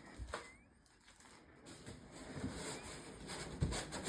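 Faint rustling and handling of cardboard packaging as a gift box is opened, with a soft click near the start and the rustling growing louder over the last two seconds.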